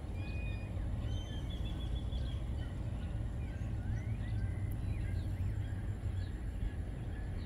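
Steady low rumble of wind buffeting the microphone, with birds chirping and whistling faintly throughout in short, thin calls, some rising in pitch.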